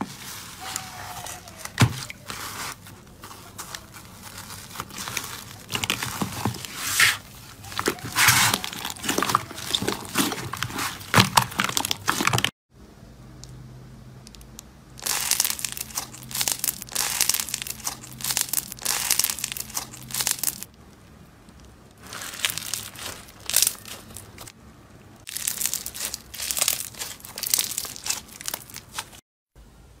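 Slime being pressed and kneaded by hand, crackling and popping in bursts of dense small clicks. After a brief cut, blue slime squeezed and pulled between two sponge blocks crackles in short bursts.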